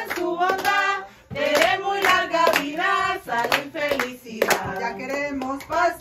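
People singing a Spanish-language birthday song in unison, with hand clapping along to the beat about twice a second; the singing pauses briefly about a second in.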